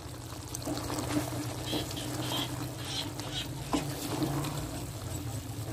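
Wooden ladle stirring a thick chicken, potato and cauliflower curry in a steel karahi over a gas flame, with the food sizzling and small irregular scrapes against the pan. There is a sharper knock about two-thirds of the way through.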